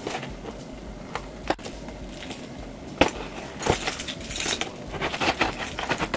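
A bunch of house keys jangling on their ring while one key picks and scrapes at the packing tape on a cardboard box. A few sharp clicks come first, then denser scratching in the second half.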